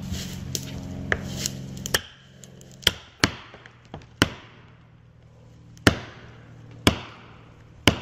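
Steel felling wedge being hammered into a chainsaw felling cut in a tree trunk: a few lighter blows, then about six heavy, sharp blows at irregular intervals roughly a second apart, each ringing briefly. A chainsaw idles under the first two seconds and carries on faintly after.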